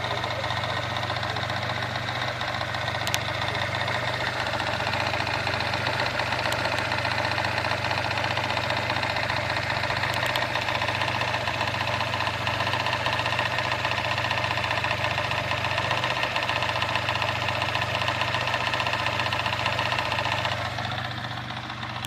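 Mazda 626 engine idling warm and low, with a noise from the timing-belt side that the owner suspects is the belt and tensioner slapping back and forth, from a tensioner or tensioner spring that was not replaced. The sound turns quieter near the end.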